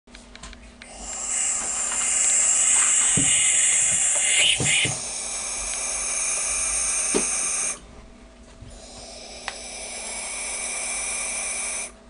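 Barn owl nestlings giving their harsh, high-pitched hissing call. One long hiss breaks off about three-quarters of the way through, and a second starts a second later and runs until just before the end, with a few soft knocks in the first part.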